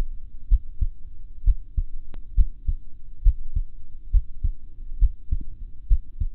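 Recorded human heart sounds played back from an AyuSynk digital stethoscope, taken at the aortic area of the chest: a steady low lub-dub, two thumps per beat, at about one beat a second.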